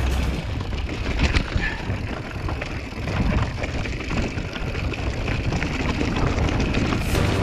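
Mountain bike rolling over a rough, rocky trail: tyre and trail noise with irregular knocks and rattles from the bike.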